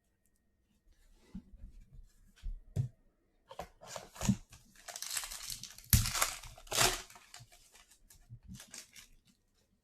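Foil wrapper of a trading card pack being torn open and crinkled, loudest in the middle, with lighter rustling and handling of the cards before and after.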